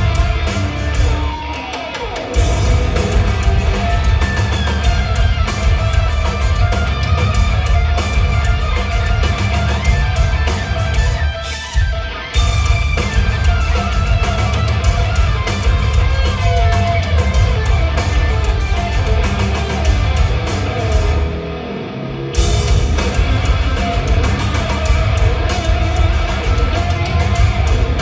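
Loud live instrumental rock: a lead electric guitar playing gliding, bending lines over drums and bass guitar. The heavy low end drops out briefly three times, about 2, 12 and 21 seconds in, before the full band crashes back in.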